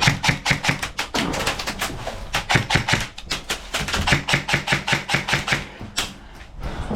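A rapid run of sharp clicks or taps, about six or seven a second, broken by short pauses and easing off near the end.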